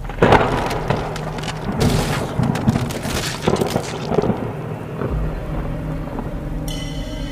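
Thunderstorm: several loud cracks and rumbles of thunder over a steady rain hiss through the first four seconds or so, easing off after that. Near the end a steady music drone of several held tones comes in.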